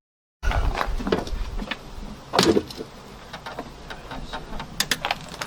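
Plastic engine-bay trim panels and clips being handled and unclipped: scattered clicks and knocks, the loudest about two and a half seconds in, with a few sharp clicks near the end.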